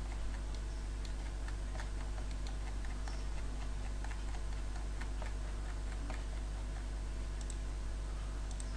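Steady low hum with faint, light clicks scattered about twice a second.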